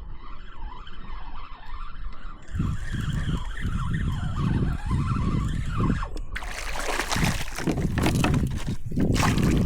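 Low rumbling noise that grows louder about two and a half seconds in and turns into a louder rushing, splashing noise about six seconds in, as a hooked fish is fought from a kayak.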